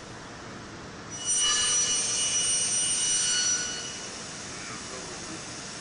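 Copper tube production machinery running with a steady hiss, and a loud, high-pitched squeal of several steady tones starting about a second in and lasting about two and a half seconds.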